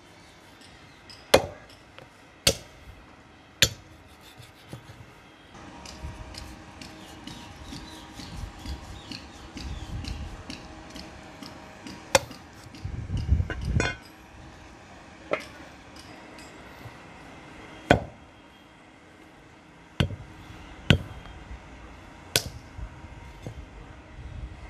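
Heavy knife chopping through goat legs, bone and all, onto a wooden log chopping block: about ten sharp chops at irregular intervals, some in quick succession and others several seconds apart.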